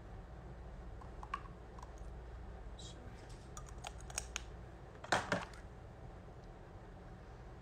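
Small plastic clicks and taps of cosmetic packaging being handled, a tube and a little container, with a louder double click a little after five seconds in.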